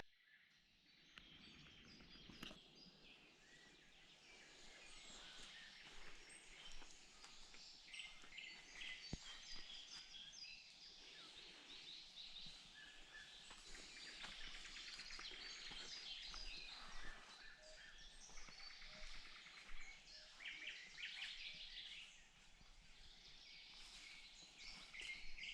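Faint chorus of songbirds chirping and calling.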